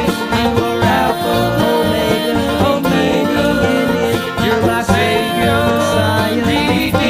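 Bluegrass band playing, with banjo picking over guitar.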